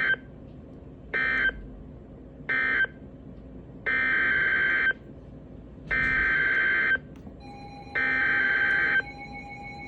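NOAA Weather Radio Specific Area Message Encoding (SAME) digital data bursts, each a harsh buzzing warble. First come three short end-of-message bursts about a second and a half apart, closing one warning. Then three longer header bursts, one every two seconds, announce the next warning, and a faint steady tone comes in near the end.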